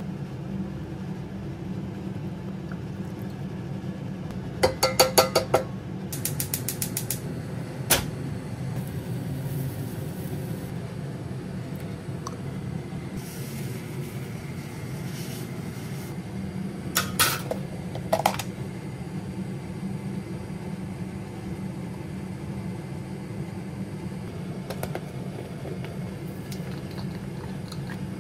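Kitchen handling sounds over a steady low hum: a short burst of rapid mechanical clicking about five seconds in, a single sharp click a few seconds later, and another few clicks about two-thirds of the way through.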